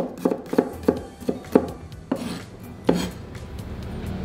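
Chef's knife slicing shallots on a wooden cutting board: about six quick knocks of the blade on the board, roughly three a second, then two slower strikes, stopping about three seconds in.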